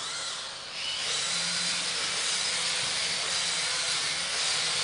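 Electric drive motors of the InMoov robot's wheeled base running as it drives forward: a steady hissing whir with a faint low hum and a faint high whine, building up about a second in.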